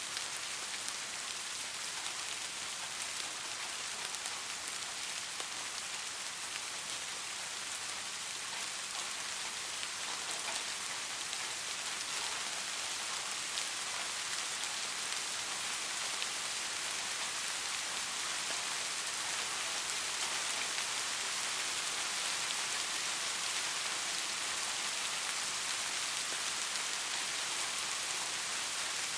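Steady rain falling on a surface, an even hiss with scattered individual drop taps.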